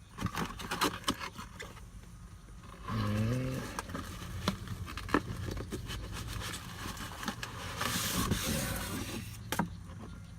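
Scattered clicks, knocks and scraping from hands handling parts inside a truck's cab during a car-stereo install, with a short low hum about three seconds in.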